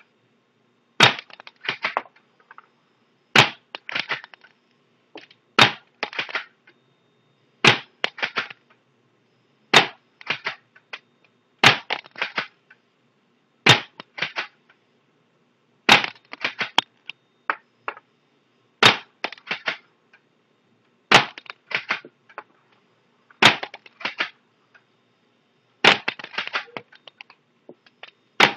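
Stinger P9T spring-powered airsoft pistol firing .12 g BBs one shot at a time, a sharp snap about every two seconds, each followed by a quick scatter of lighter clicks.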